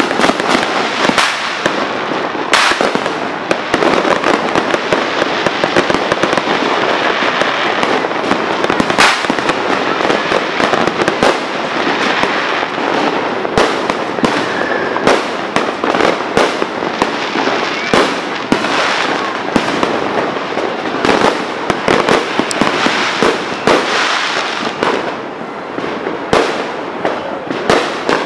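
Fireworks and firecrackers going off in a continuous rapid crackle of pops. Louder single bangs stand out every few seconds.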